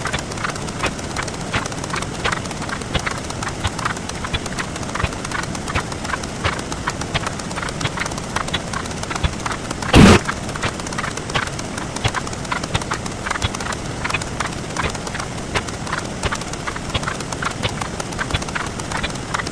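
Sped-up counting sound effects: a fast, dense, uneven patter of short clicks, with one much louder burst of about half a second about ten seconds in.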